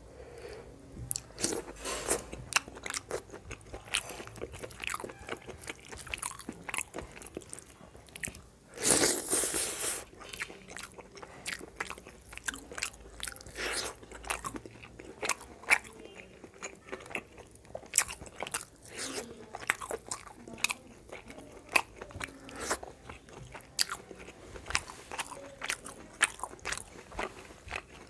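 Close-miked eating sounds of a person chewing a mouthful of fish curry and rice: wet chewing with many short, sharp crunchy clicks. About nine seconds in comes one louder, noisier burst lasting about a second.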